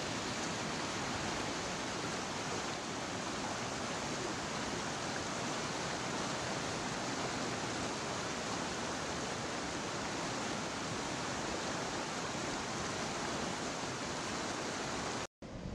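Steady rush of white water pouring over a low concrete river weir and churning through its chute, breaking off suddenly near the end.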